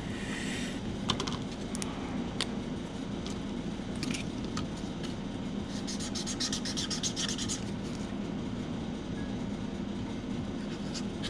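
Red marker scratching out numbers in a quick run of short strokes a little past the middle, with a few light clicks, over a steady low hum in the background.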